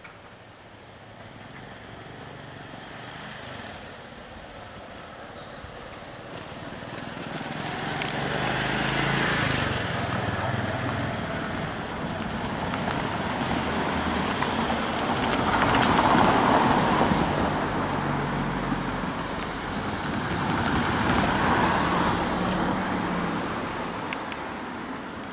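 Vehicles passing close by at a road and rail crossing: a rumble with a low hum swells over several seconds, rises and falls in three surges, and eases off near the end.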